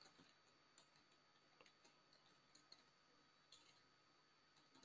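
Near silence: faint background hiss with a few very faint scattered clicks.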